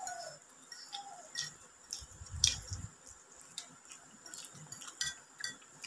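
Forks tapping and scraping on plates while noodles are eaten: scattered light clicks, with a dull thump about two seconds in.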